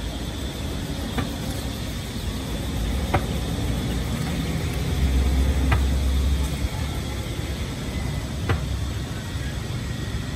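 Street traffic with a low engine rumble that swells as a motor vehicle passes about five seconds in, over the steady hiss of dumplings deep-frying in a wok of oil, with a few sharp pops.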